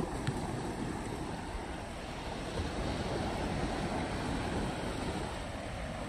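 Steady rush of ocean surf mixed with wind buffeting the microphone.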